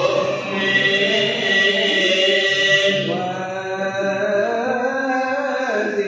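Coptic Orthodox liturgical chant: a voice singing long, drawn-out notes that bend slowly in pitch, as in the hymns sung while the offering bread is signed at the altar.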